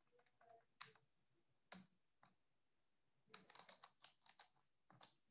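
Faint computer keyboard keystrokes: a few scattered taps, then a quick run of them about three and a half seconds in.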